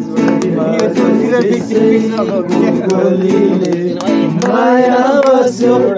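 Music: a song with guitar and a singing voice, the voice coming in more clearly a little past the middle.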